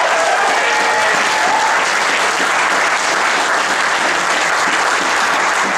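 Audience applauding, with a few voices cheering over it in the first two seconds.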